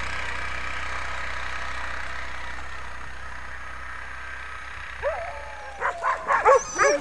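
A motor vehicle's engine running steadily and fading away as it drives off. About five seconds in, sled dogs start yipping and whining.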